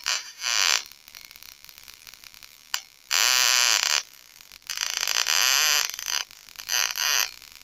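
High-voltage sparks arcing at the wire ends of a homemade ozonator: a loud crackling buzz that comes in four bursts of about half a second to a second and a half, with short quiet gaps between.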